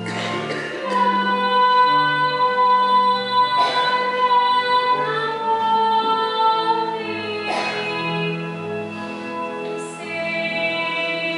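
Sacred singing with instrumental accompaniment: voices on long held notes over chords, with a bass line moving step by step beneath them.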